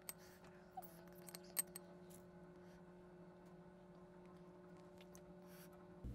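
Near silence: faint steady hum of room tone, with a few faint light clicks in the first two seconds.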